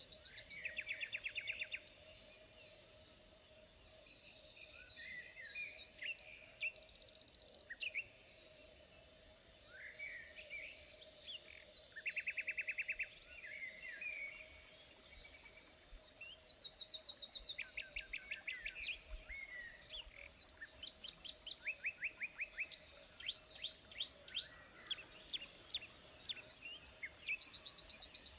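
Several wild birds calling and singing, with quick chirps and rapid trills of evenly repeated notes coming one after another. A faint steady hum sits underneath.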